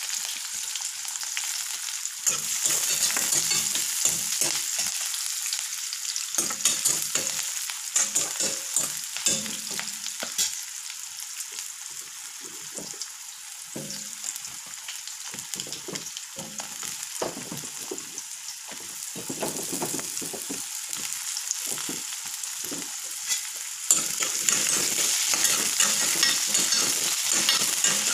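Sliced onions and green chillies sizzling in hot oil in a steel kadai, with scattered knocks and scrapes as potato pieces go in and a ladle stirs against the pan. The sizzling gets louder about four seconds from the end.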